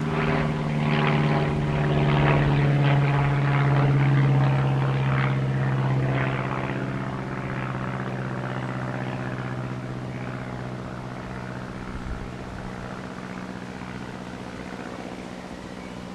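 Single-engine propeller airplane's engine running, loudest a few seconds in, then fading steadily as the plane moves away.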